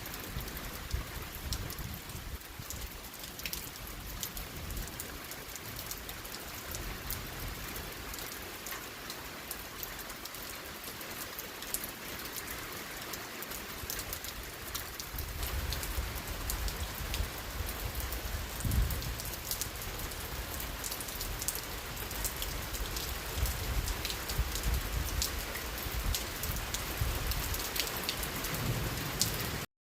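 Steady rain falling, with many sharp individual drop hits close by. A low rumble comes in about halfway through and carries on under the rain.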